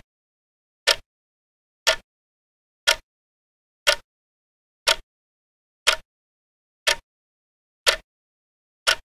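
Clock ticking, one sharp tick about every second, with nothing heard between the ticks.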